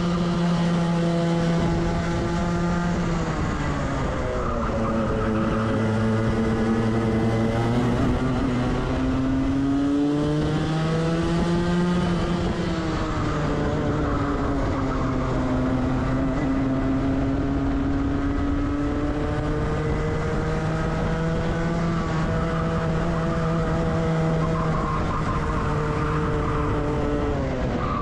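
Racing kart's Rotax Max 125cc two-stroke engine heard onboard at full race pace. Its pitch climbs along the straights and drops sharply as the driver lifts for the bends, about three times.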